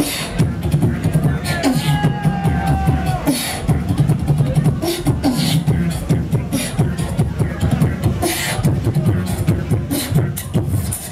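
Beatboxing into a handheld microphone: fast, dense percussive snares and clicks over a heavy bass line, with a held tone about two seconds in.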